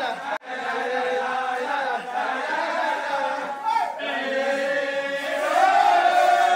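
Men's voices chanting together in unison, with long held notes that slide in pitch.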